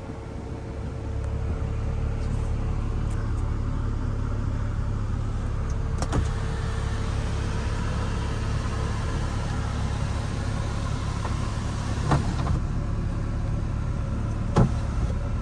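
A 2003 Mini Cooper's electric sunroof motor whirring as the glass panel slides, starting with a click about six seconds in and stopping with a click about twelve seconds in. A steady low hum from the car runs underneath, and there is one more click near the end.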